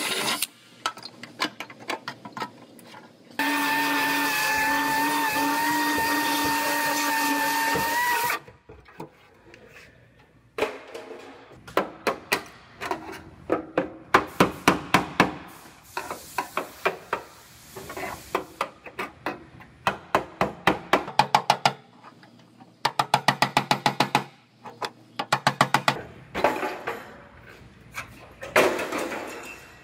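Cordless drill running steadily for about five seconds, boring into the car body's sheet metal. After it come runs of rapid sharp taps and clicks, some quick as about eight a second.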